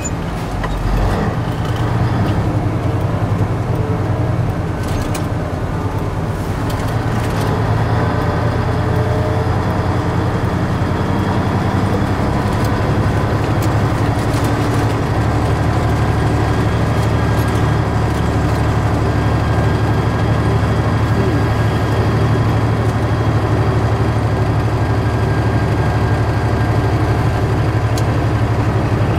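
Semi truck's diesel engine running steadily under way, heard from inside the cab as a constant low drone. Its low note shifts a couple of times partway through, and a few sharp clicks sound early on.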